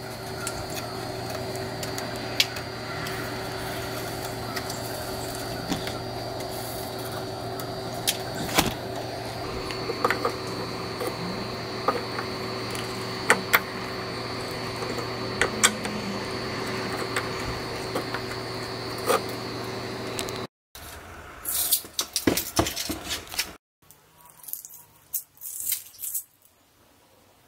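Sharp metallic clicks and small scrapes of end-cutting nippers gripping and pulling leftover nails from a wooden door's window frame, over a steady hum. After about twenty seconds the sound cuts away to scattered light taps and clicks.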